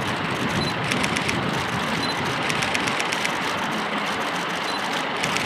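Steady street noise with traffic, broken by bursts of rapid camera-shutter clicks, about a second in and again in the middle.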